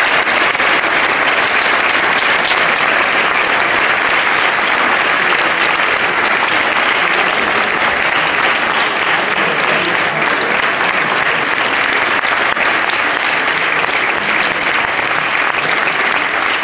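Audience applauding steadily, dense clapping that holds at an even level without a break.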